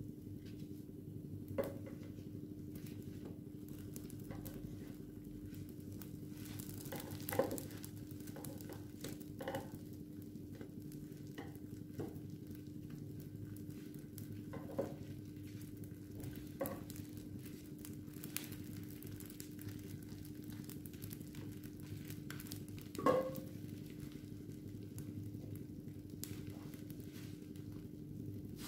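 Mkhanfar pancakes sizzling softly in a seven-cup nonstick pancake pan, over a steady low hum. A handful of light taps and clicks come as they are turned over by hand and with a spatula, the loudest about 23 seconds in.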